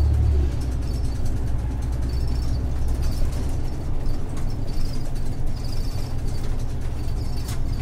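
Interior running sound of an Isuzu Erga PDG-LV234L2 city bus, with its 6HK1-TCC inline-six diesel and Allison five-speed torque-converter automatic. The low engine drone drops about half a second in and again about three seconds in as the bus eases off the throttle and slows for a stop.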